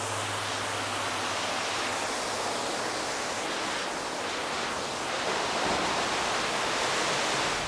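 Steady rushing of water falling over the small waterfall of the river feeding the pond: an even hiss with no breaks, a little louder from about five seconds in.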